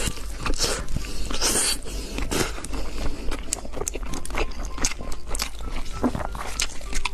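Close-miked eating sounds: a person biting and chewing crunchy food, with many irregular crunches and clicks.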